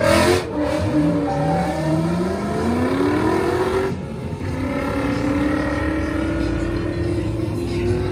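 Drift cars' engines revving hard as they pull away from the start line, the pitch climbing steadily. After a cut about four seconds in, an engine holds a steady high note.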